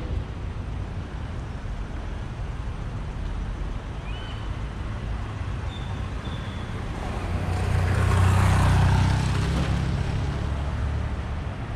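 Street traffic rumbling steadily, with a motor vehicle passing close about seven to ten seconds in, its engine hum and tyre noise getting louder and then fading.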